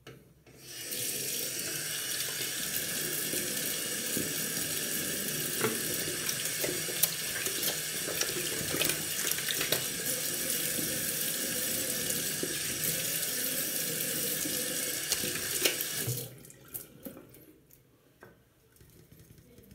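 Bathroom tap running into a sink while water is scooped and splashed onto a head to wet it, with small splashes through the steady flow. The water starts about a second in and is shut off after about fifteen seconds, leaving a few faint drips and clicks.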